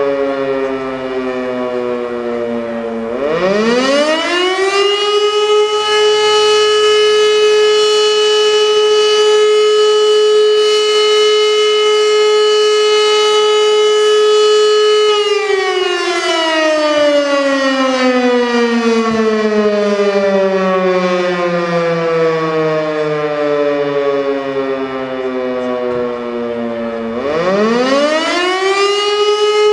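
Elektror L52 electric rotary siren sounding the fire alarm signal in a test. It is winding down at first, then winds up quickly about three seconds in to a steady held tone for about ten seconds. It then falls slowly for about twelve seconds and winds up again near the end.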